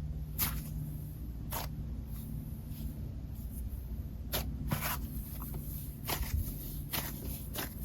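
Hands squishing and stretching a dense, slightly wet cloud slime, giving soft irregular crackles and sticky pops, about seven spread over several seconds.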